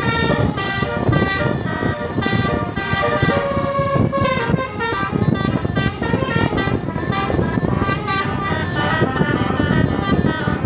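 Dense road traffic with many vehicle horns honking in short overlapping toots at different pitches, over a constant engine and road rumble.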